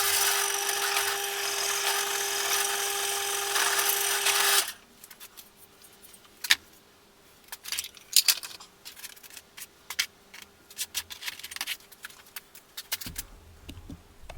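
Power drill running steadily at a constant pitch while drilling switch holes in a switch plate, cutting off suddenly about four and a half seconds in. After that come scattered light clicks and knocks.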